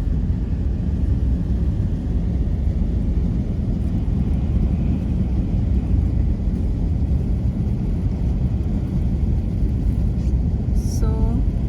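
Steady low rumble of vehicle and road noise on snowy roads in slow traffic. A brief pitched sound with a few tones comes near the end.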